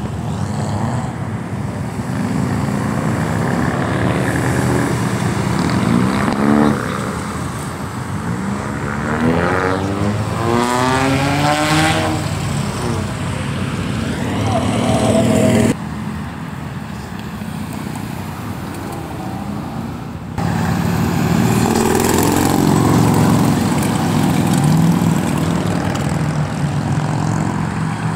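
Cars in a street cruise driving past, engines revving and accelerating with rising pitch several times over steady traffic noise.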